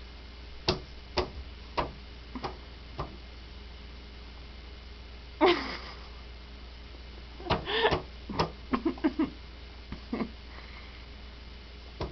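A baby fussing during a feed: a short wordless vocal sound about five seconds in, and brief vocal bits among sharp taps and clicks between about seven and ten seconds. A run of five sharp clicks comes in the first three seconds.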